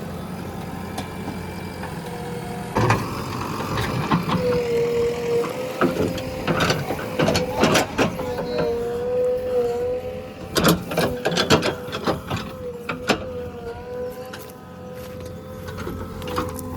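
JCB 3DX backhoe loader working, its diesel engine running with a steady whine that wavers slightly in pitch. From about three seconds in, many sharp clanks and knocks come in irregular clusters.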